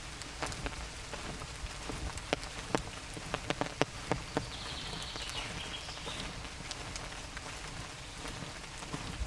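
Light rain: a soft steady hiss with scattered sharp raindrop taps, busiest in the middle few seconds.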